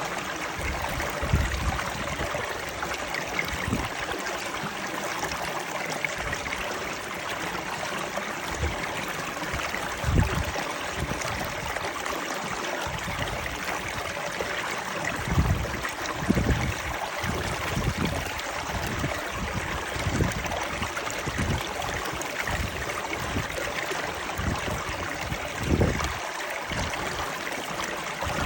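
Stream of water flowing and trickling in a steady rush, with irregular soft low thuds now and then.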